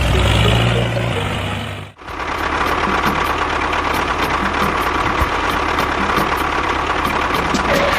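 Engine running steadily; about two seconds in it cuts out briefly and comes back as a harsher, noisier running sound with a faint regular ticking.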